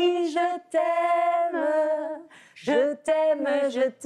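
A woman singing a cappella, holding long notes with a few short breaths between phrases.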